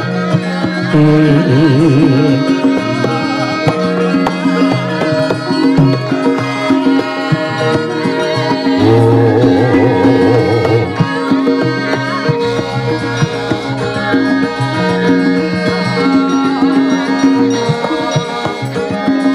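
Javanese gamelan music: a sindhen (female singer) sings over the ensemble's steady ringing metallophone tones and hand-drum (kendang) strokes, with wavering held notes about a second in and again near the middle.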